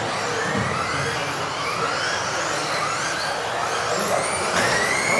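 Several electric off-road RC cars racing around an indoor track, their motors whining up and down in pitch as they accelerate and brake, echoing in a sports hall.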